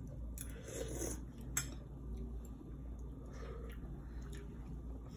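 Metal ladle knocking and scraping against a stainless steel cooking pot of broth: a few light clinks in the first second and a half, then fainter ones, over a low steady hum.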